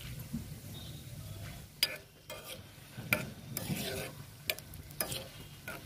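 Whole spices (cumin, red chillies, yellow mustard seeds) sizzling in hot oil for a tadka while a spoon stirs them, knocking and scraping against the pan about five times.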